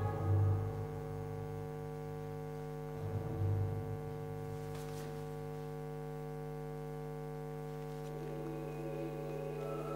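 A steady low drone of sustained tones from an ambient music score, with two low thuds, one at the start and one about three seconds in.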